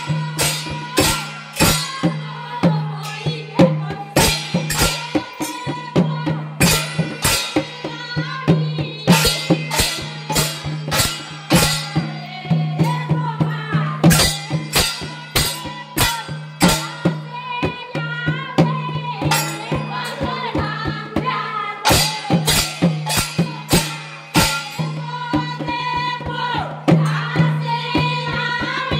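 Dhamail kirtan: group singing of a Bengali devotional folk song to fast, even claps and hand percussion over a steady low drone.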